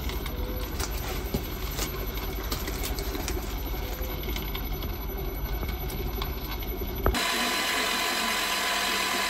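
Metal lathe running with the brass wheel blank and aluminium clamping disc spinning in the chuck while the rim is trued: a low rumble with scattered light clicks. About seven seconds in, it changes suddenly to a milling machine running with a steady whine.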